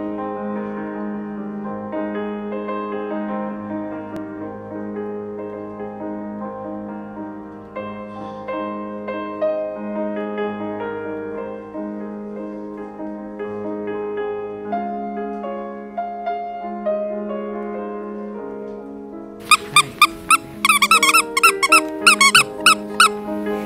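Piano music plays throughout. Near the end, a dog's squeaky plush toy squeaks loudly many times in quick succession over the music as an Irish terrier bites down on it.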